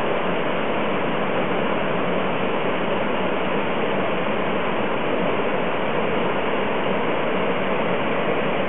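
Small waterfall and the stream below it rushing steadily, running high with floodwater after heavy rain.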